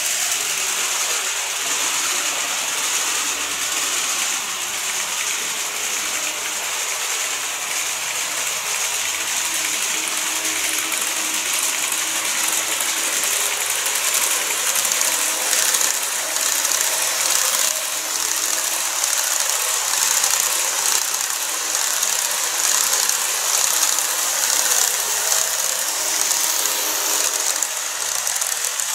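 N-gauge model electric trains running on track: a steady mechanical rattle and hiss of the small wheels on the rails, with a faint motor whine underneath.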